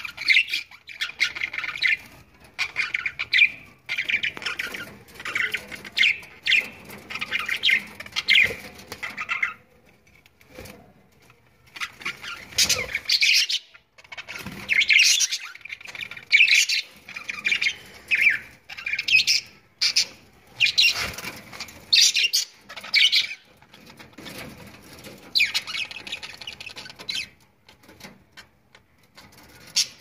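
A group of budgerigars calling in repeated bursts of high chatter. The calls pause for about two seconds some ten seconds in and die away near the end.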